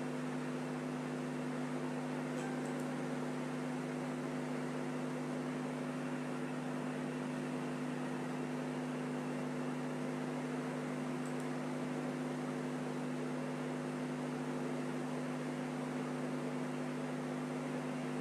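Steady electrical hum with a hiss beneath it, unchanging throughout: the room tone of a running mains-powered appliance.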